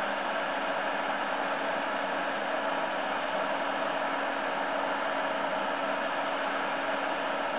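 PC case fan running in an open case, heard as a steady, even rush of air with a faint low hum under it; its airflow is straightened, without turbulence.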